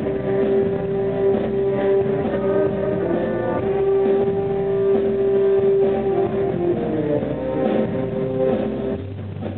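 Jazz band playing, with a baritone saxophone soloing over the ensemble; several notes are held long.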